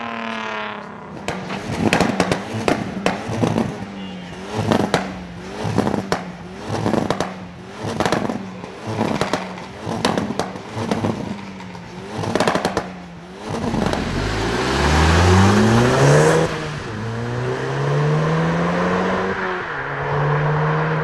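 Volkswagen Golf R-series car's engine and exhaust revved in short throttle blips, about one a second, with crackles on each blip. After about thirteen seconds it pulls away accelerating hard, the pitch climbing and then dropping at two gear changes.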